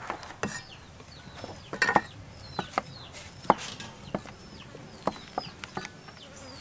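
Knife and cleaver blades slicing through beef balls and striking a wooden chopping block, giving irregular sharp knocks, loudest about two seconds in and again past the middle. Chicks peep with short falling cheeps in the background.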